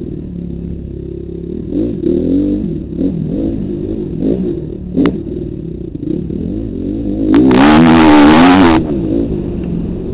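Dirt bike engine revving up and down over and over as the throttle opens and closes on a trail ride. About seven seconds in comes a loud rush of noise lasting over a second, louder than the engine.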